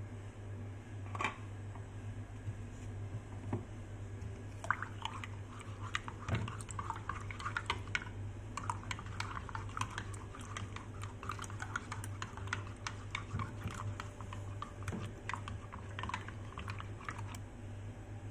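A spoon stirring green juice in a mug, making a quick run of light clinks and taps against the mug's side that starts a few seconds in and goes on until near the end. A steady low hum lies underneath.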